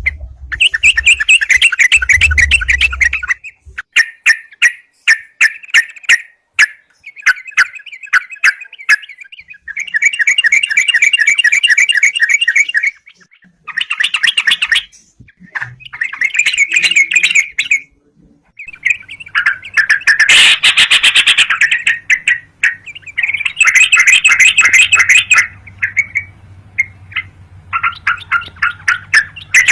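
Sooty-headed bulbul (crucukan) singing and chattering in repeated bursts of fast notes, each phrase lasting a few seconds with short pauses between them.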